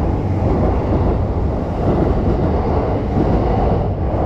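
Steady low rumble of city street noise around a railway station, with no single sound standing out.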